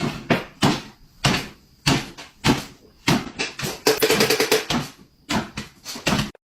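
A quick, irregular run of sharp knocks and bangs, with a short rattle about four seconds in.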